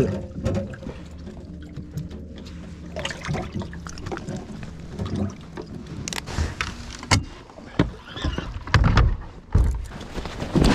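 A bass being handled into a bass boat's livewell: irregular knocks and clicks of hands and hatch on the hull, over a steady low hum. Heavier low thumps come near the end.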